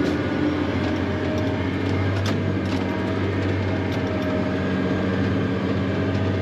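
Dump truck engine running steadily under way, heard from inside the cab, with a few short knocks and rattles about two to three seconds in as it drives over the muddy, rutted track.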